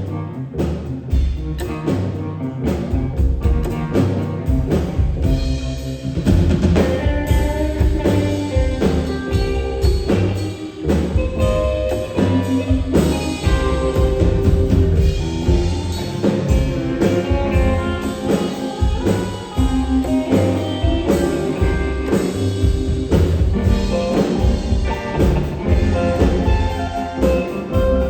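Live band playing an instrumental break in a rock song, with no singing: a drum kit keeping a steady beat under sustained melodic instrument lines.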